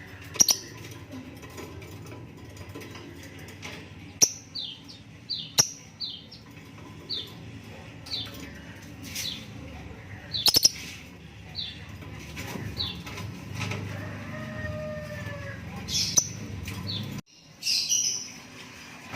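Lovebird chick calling in short, high chirps that fall in pitch, about one a second, with a few sharp clicks among them.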